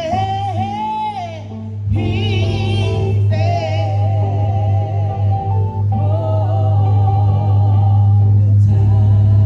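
Live gospel praise singing: voices with wide vibrato over electronic keyboard accompaniment. The voices sing in phrases during the first few seconds, then the keyboard's held chords carry on.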